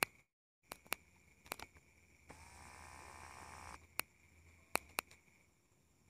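Steady high trilling of night insects, crickets or similar. It is broken by a series of sharp clicks, and by a rustling noise lasting about a second and a half around the middle. The sound cuts out completely for a moment just after the start.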